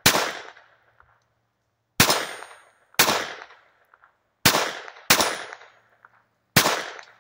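Ruger SR22 .22 rimfire semi-automatic pistol firing six single shots at an uneven pace, each spaced half a second to a second and a half apart and trailing off with a short echo.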